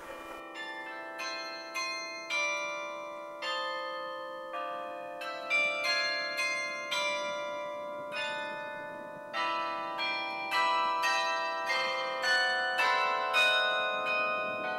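Church tower carillon playing a melody: a steady run of struck bronze bells, a new note every half second or so, each ringing on and overlapping the next.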